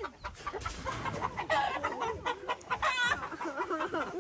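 Chickens clucking over and over, with a sharper, higher call about three seconds in.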